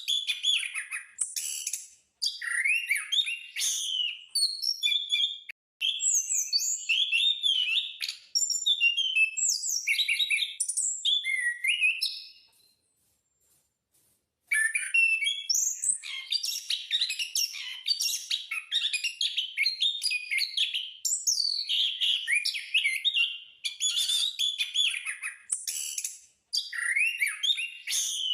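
Anis (punglor) ground thrush in full song: a long run of rapid, varied whistled and chirping phrases, breaking off for about two seconds midway before resuming.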